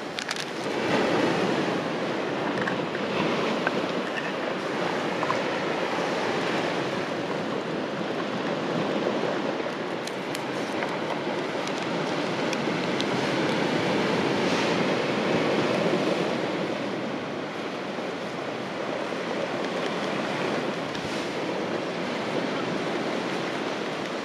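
Sea surf washing against a rocky shore: a steady rushing hiss that swells and eases, loudest about two-thirds of the way through, with a few faint clicks.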